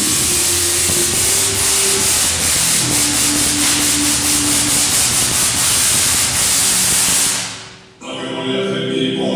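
Large Tesla coil firing, its arcs making a loud, continuous crackling buzz that fades and stops about eight seconds in.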